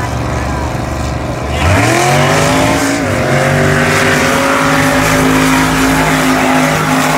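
Swamp buggy engines racing: a low engine rumble, then about one and a half seconds in an engine opens up, its pitch climbing sharply before holding a steady high note at full throttle over a rushing noise.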